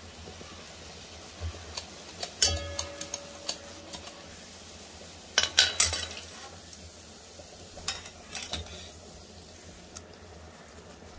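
Rose cookies deep-frying in hot oil in a wok, a steady sizzle, with metal utensils (the rose-cookie mould and a slotted spoon) clinking against the pan. There is a sharp ringing clink about two and a half seconds in, a quick cluster of clinks around six seconds, and a few lighter ones later.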